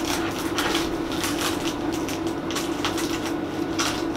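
Scalpel cutting open a small wrapped package: irregular crinkling and rustling of the wrapping, over a steady low hum.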